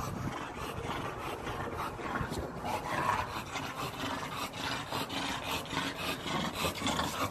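Skateboard wheels rolling steadily over rough asphalt.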